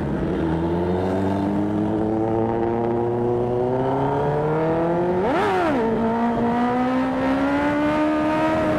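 Inline-four sport motorcycle engine pulling hard under acceleration, its pitch climbing steadily; about five seconds in it gives a quick sharp rev spike and drops to a lower pitch, as in a gear change, then climbs again, with wind rush over the microphone.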